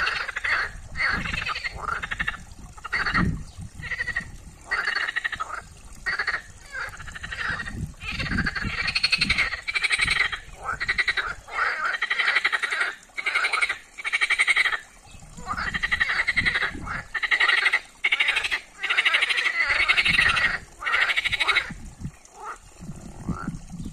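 Chorus of European green frogs (water frogs) calling: many short calls, each under a second, following and overlapping one another in quick succession, thinning out near the end.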